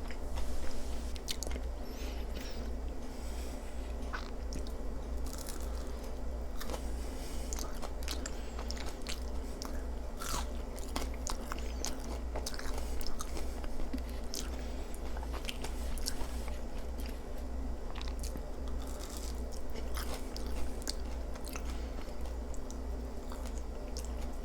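Close-miked chewing and biting of a sloppy joe and tater tots, with irregular crunchy and wet mouth clicks throughout. A steady low hum runs underneath.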